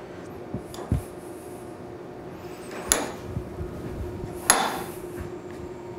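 A steel shaft clinking against a gearbox chuck clamped in a bench vise as it is fitted in: a few sharp metallic clicks, the loudest about four and a half seconds in, over a steady low hum.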